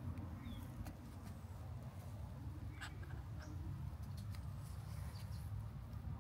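Faint garden ambience: a steady low rumble, scattered light ticks and rustles, and a few brief high bird chirps.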